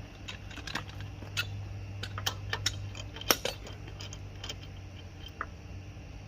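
Scattered light metallic clinks and taps of tools and small car parts being handled during a brake job, the loudest about three seconds in, over a steady low hum.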